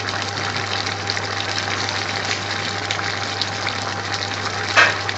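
Large pan of chopped onions, carrots and peppers boiling hard for a curry base gravy: steady bubbling with many small pops and a louder splutter near the end. A steady low hum runs underneath.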